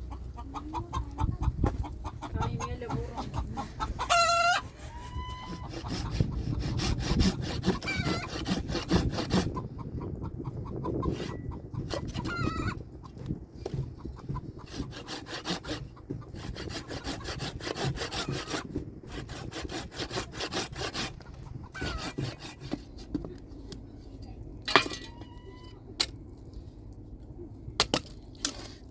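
Domestic chickens clucking and calling, with a short loud call about four seconds in and a few more later. A rapid scraping sound runs from about five to ten seconds in, and there are a few sharp clicks near the end.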